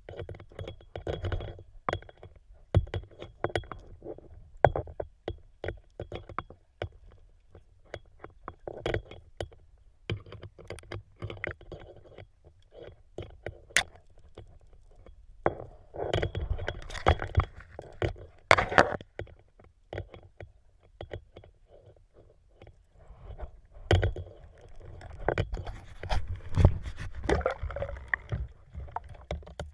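Underwater sound from a spearfisher's camera: scattered sharp clicks and knocks throughout, with two stretches of rushing water noise, about halfway through and again near the end.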